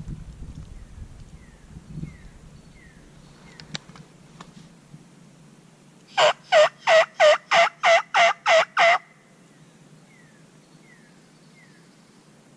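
Turkey yelping: a run of nine loud, evenly spaced notes, about three a second, lasting close to three seconds, starting about six seconds in. Faint small-bird chirps come before and after.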